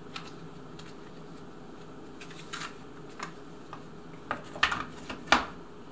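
Scattered light clicks and knocks as the Desert Tech SRS airsoft rifle's grey shell half is handled and fitted against the receiver, the sharpest knock just over five seconds in.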